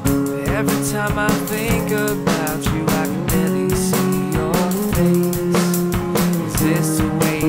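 Indie rock song playing: a drum kit keeps a steady beat under guitar, with a sliding lead melody line above.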